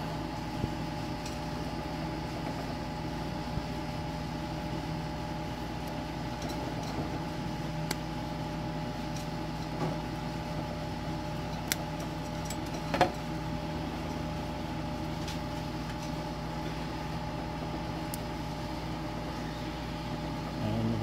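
Steady machine hum with a constant tone, with a few faint short clicks, the sharpest about two-thirds of the way through.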